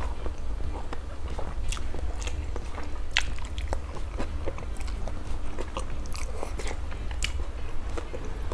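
Close-miked eating sounds: instant noodles being chewed and slurped, with many short, sharp wet mouth clicks. A steady low hum runs underneath.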